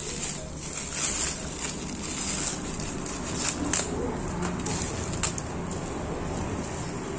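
Thin plastic mailer bag and plastic wrap crinkling and tearing as they are pulled and handled, with a few sharp crackles.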